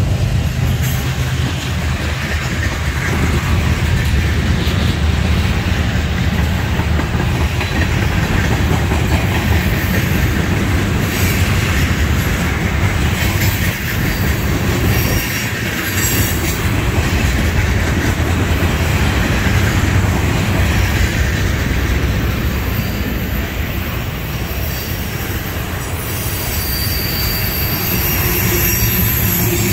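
Loaded freight cars of a trash train rolling past at close range: a steady low rumble and clatter of steel wheels on rail. Thin high wheel squeal comes in near the end.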